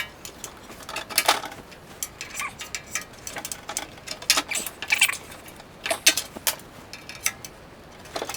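Cleaned metal rods clinking and clicking against a steel tool chest as they are fitted into place, a string of irregular sharp metallic knocks.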